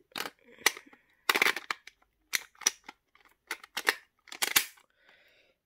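Sharp clicks and snaps of hard plastic as an Ex-Aid Ride Watch toy is pressed and locked into a plastic Ride Watch holder. There are about ten short clicks in irregular succession, with a faint scrape near the end.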